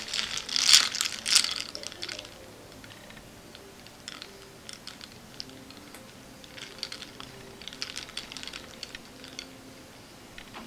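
Small hard objects clicking and rattling against each other, like makeup cases and applicators being handled: a dense flurry of clicks in the first two seconds, then short scattered runs of lighter clicks.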